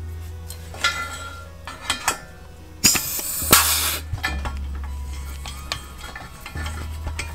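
Pneumatic rivet nut (nutcert) tool setting a nutcert in a steel bracket: small metal clicks as the insert and tool are fitted to the hole, then a loud burst of air hiss lasting about a second, about three seconds in, as the tool cycles.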